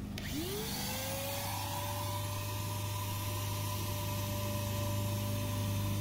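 Wet/dry shop vacuum switched on: its motor whine rises in pitch as it spins up in the first second, then runs steady while it sucks out an air conditioner's clogged condensate drain line.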